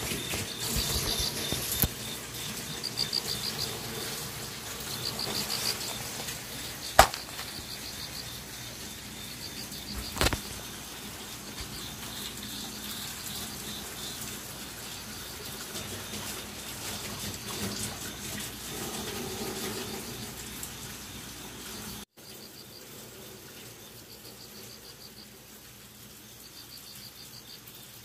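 Crickets chirping in short pulsed trills, repeating every second or two, with two sharp knocks about seven and ten seconds in.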